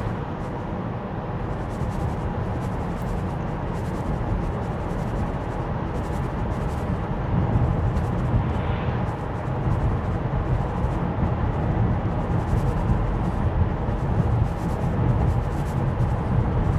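Steady road and tyre noise inside the cabin of a Tesla Model Y electric car driving on a two-lane road: a low rumble with no engine sound, a little louder in the second half.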